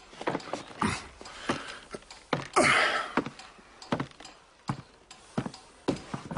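Footsteps and knocks on a wooden floor, a dozen or so irregular short thuds, with a louder scrape about two and a half seconds in.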